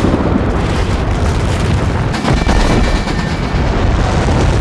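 Avalanche: a deep, continuous rumble of snow crashing down a mountainside, loud and unbroken after a sudden onset.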